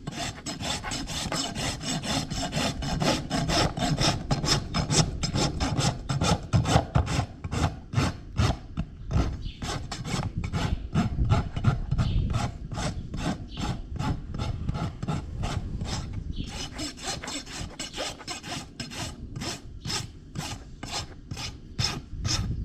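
Farrier's rasp being drawn across a horse's hoof in a long run of quick, rhythmic strokes.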